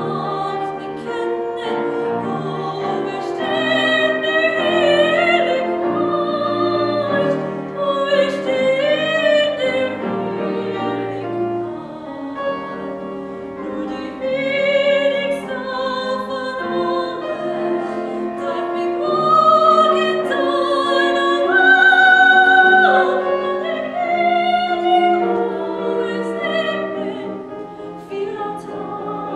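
Classical solo singing with vibrato, accompanied by piano, building to a loud, long high note about three-quarters of the way through.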